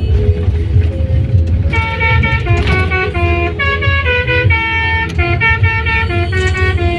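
Telolet bus horn, a set of multi-tone air horns, playing a quick melody of short notes stepping up and down, starting about two seconds in. A steady low rumble runs underneath.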